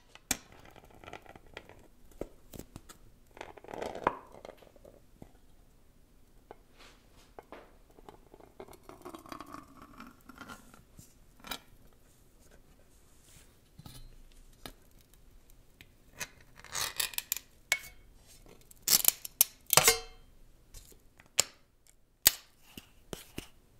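Metal ground-coffee tin being opened with a spoon: scattered small clicks and scrapes as the seal is pried up and lifted off, then louder crinkly clicks and scrapes in the last third as the spoon works into the ground coffee.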